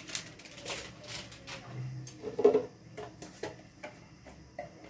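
A spoon clinking and tapping against a cooking pot and spice containers as ground spices are added, a run of light clicks with one louder knock about halfway through.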